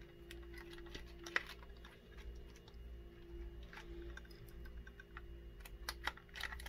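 Small metal pick clicking and scraping against a Ring doorbell's plastic housing and circuit board as it is pried apart: irregular faint clicks, a sharper one about a second and a half in and a cluster near the end, over a steady low hum.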